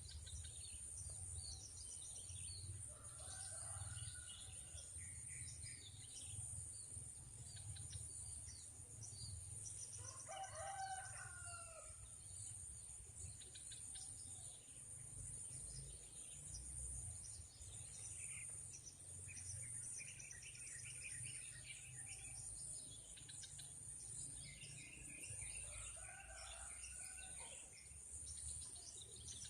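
A rooster crowing three times, several seconds apart, over a steady high insect drone and scattered bird chirps.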